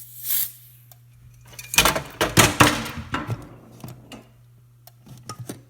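Can of Smoke Check aerosol smoke-detector tester sprayed at a smoke detector to set it off: a short hiss of spray, then a longer, louder burst about two seconds in. A steady low hum runs underneath, and a few light clicks come near the end.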